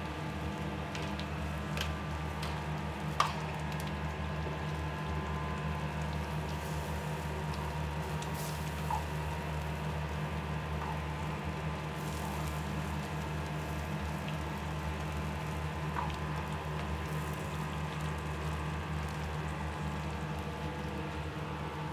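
Several pans of curry sauce bubbling and simmering over gas burners, over a steady low hum from the kitchen. A few light metal clinks from ladles and pans, the loudest about three seconds in.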